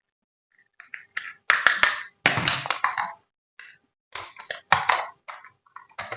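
Packaging being handled as a toy is unboxed: irregular bursts of crinkling and rustling with a few sharp clicks.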